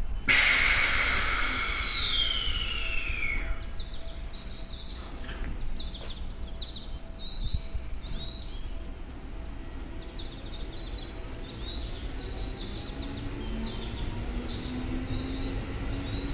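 Seibu 101-series electric trains moving slowly through a station. A loud whine falls steadily in pitch over the first three seconds, followed by short high chirps and, near the end, a low hum that slowly rises in pitch.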